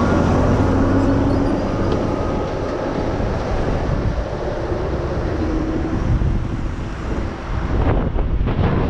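Car driving slowly through a roundabout: steady engine and tyre road noise, with wind buffeting the microphone near the end.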